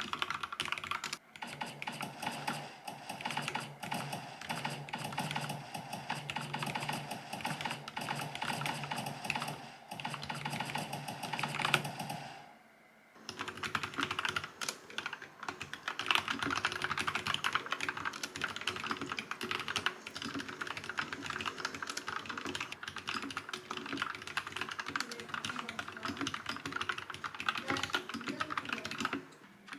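Vissles V84 wireless mechanical keyboard with linear switches being typed on continuously: a dense, fast run of key clacks, with a brief pause about thirteen seconds in.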